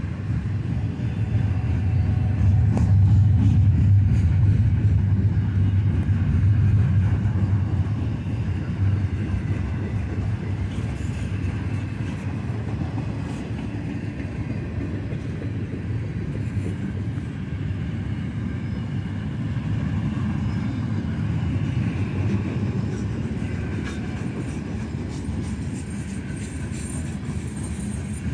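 Freight train cars rolling past, double-stack container well cars then covered hoppers, making a steady low rumble of steel wheels on rail. The rumble swells about two seconds in and eases after about eight seconds.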